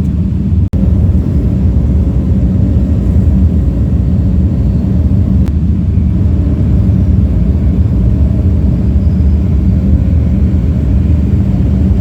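John Deere 135G excavator's diesel engine running steadily with a low drone, briefly cut out under a second in.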